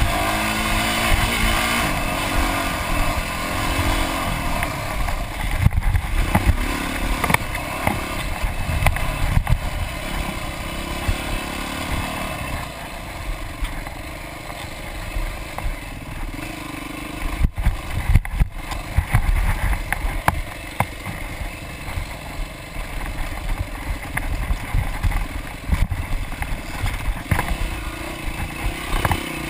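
Dirt bike engine revving up and down with the throttle as it is ridden over rough off-road ground, louder near the start and end, with frequent sharp knocks and rattles from the bike over bumps and ruts.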